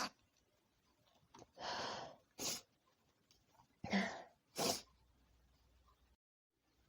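A woman's sneeze ends right at the start. Several shorter, quieter breathy nose-and-mouth sounds follow, sniffs and breaths after the sneezing fit, and one carries a little voice about four seconds in.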